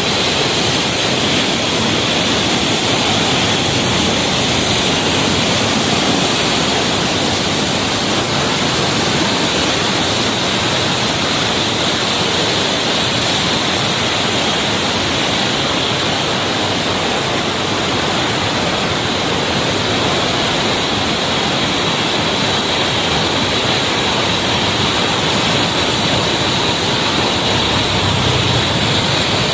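Kaveri river in flood: fast floodwater rushing and churning in a steady, loud rush of water.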